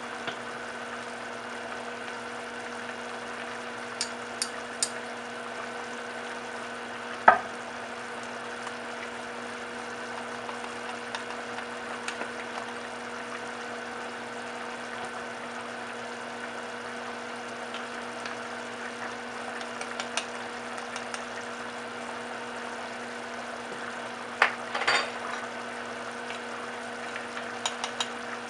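Pot of chili broth bubbling at a boil over a steady low hum, with a few light clicks and one sharp knock about seven seconds in, as a spoon adds spices against the pot.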